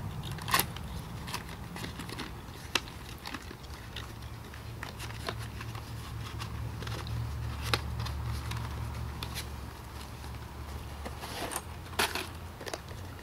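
Scattered sharp clicks and clinks of brass rifle cartridges on stripper clips and small cardboard ammunition boxes being handled, with a louder click near the start and another near the end. A steady low rumble runs underneath, swelling in the middle.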